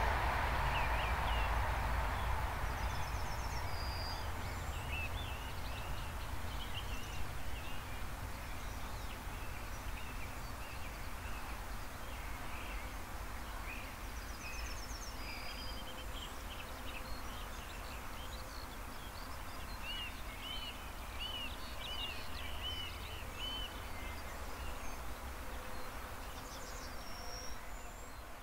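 Electric passenger train rolling past and fading into the distance over the first several seconds. Then birds chirp and trill over the fields, with a run of about six repeated notes around twenty seconds in, over a steady low rumble.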